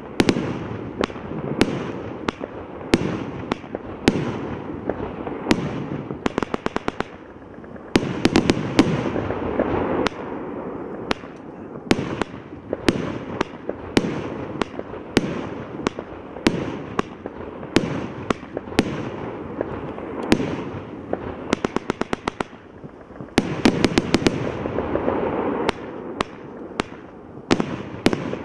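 Evolution Fireworks 'Avatar' multi-shot firework barrage firing shot after shot, each a launch thump followed by a sharp bursting report. The shots come roughly one or two a second, broken by a few quick-fire flurries of rapid reports in the middle and near the end.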